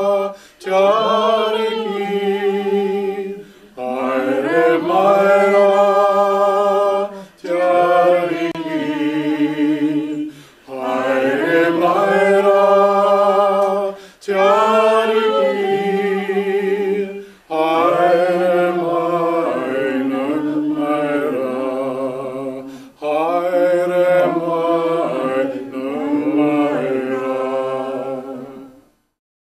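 Unaccompanied a cappella singing in phrases of a few seconds with held notes, separated by short breaths, stopping just before the end.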